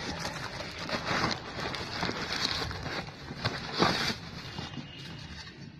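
Paper and plastic wrapping rustling and crackling as it is torn off a scooter wheel rim, with one louder crackle about two-thirds of the way through.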